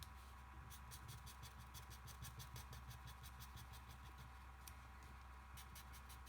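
Scissors cutting a small circle out of paper: quick, regular snips, about five or six a second, in two runs with a short pause between them.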